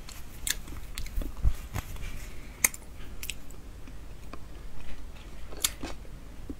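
Mouth sounds of someone eating durian: chewing with scattered smacks and clicks, a few sharper ones standing out among them.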